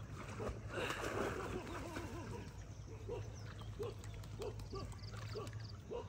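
A Belgian Malinois swimming and breathing hard through its nose, a run of short snorts about one every half-second.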